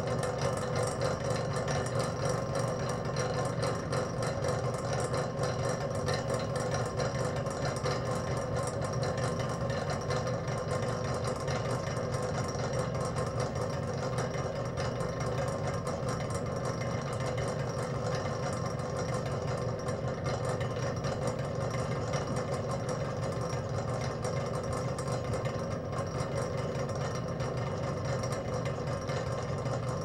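Spinning machine running at idle: a steady mechanical hum with a low drone and a higher whirr, no change in speed or load.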